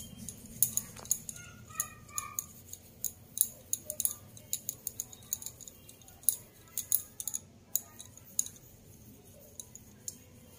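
Bangles on a woman's wrists clinking in quick, irregular clicks as she rolls laddu mixture between her palms.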